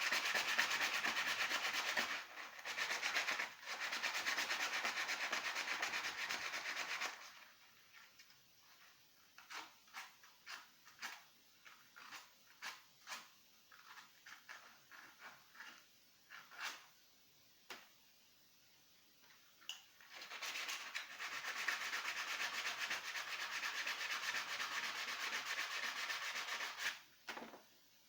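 Abrasive rubbing, as in sanding metal or wood, in two long spells, with a stretch of scattered light taps and clicks between them.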